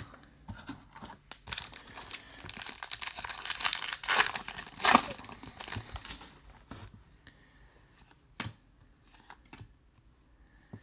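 A trading-card pack wrapper being torn open and crinkled, a dense crackle for several seconds that is loudest near the middle, followed by softer clicks as the cards inside are handled.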